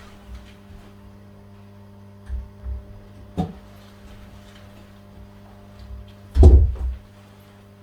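Steady electrical hum in a small room, broken by a few dull thumps and a sharp knock, with the loudest thump about six and a half seconds in.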